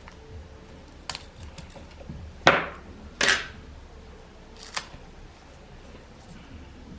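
Small tools and parts being handled on a workbench: a click about a second in, two louder scraping strikes a little under a second apart near the middle, and a smaller click near five seconds.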